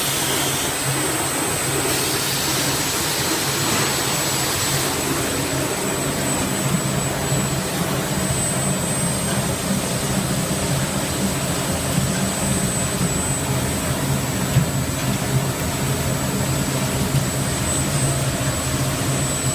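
Adhesive-tape roll cutting machine running steadily, its motors driven by inverters: an even low hum with a thin, steady high whine over it.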